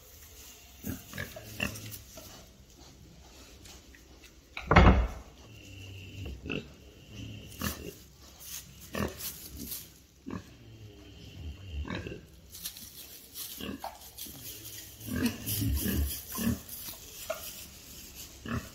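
Pigs grunting in short, scattered calls, a piglet among them, with one much louder short sound about five seconds in. Straw rustles as they move.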